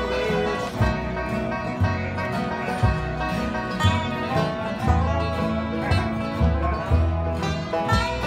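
Acoustic bluegrass string band playing together: a bowed fiddle over strummed acoustic guitars and a resonator guitar played flat on the lap. The guitars keep a steady rhythm with a low bass note about once a second.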